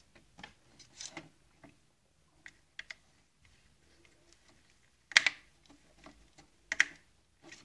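A screwdriver and small screw clicking against a metal plate on the plastic housing of a Saeco Royal coffee grinder unit as the screw is driven in. Scattered light clicks, with two louder knocks about five and about seven seconds in.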